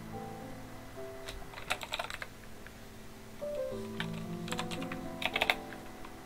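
Computer keyboard typing in two short flurries of keystrokes, the first about a second and a half in and the second around four to five and a half seconds in, over soft instrumental background music.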